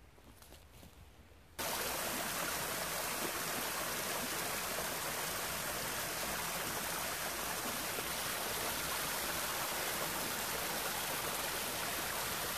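Shallow woodland stream running over a flat rock slab: a steady rush of water that cuts in suddenly about a second and a half in, after a faint, quiet start.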